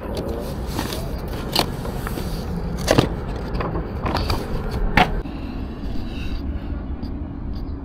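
Scattered sharp clicks and scrapes of objects being handled, over a steady low rumble.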